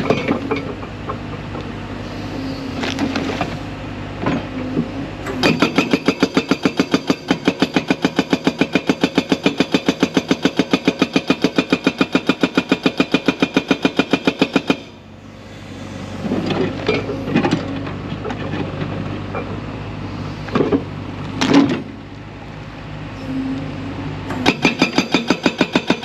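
A 4,000 lb hydraulic breaker on a large excavator hammering rock in fast, even blows. It runs for about nine seconds from five seconds in, then starts again near the end. In between, the excavator's engine runs with a few separate knocks.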